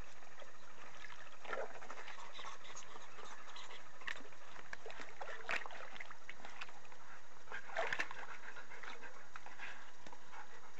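A dog mouthing and squeezing a rubber squeak toy in a plastic bin of water: steady water sloshing and dribbling, with a few short sharp sounds as the water-filled toy is squeezed.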